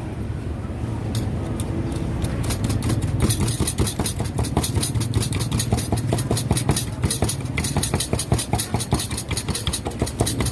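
A steady low engine hum, joined about two and a half seconds in by a rapid, dense rattle of clicks.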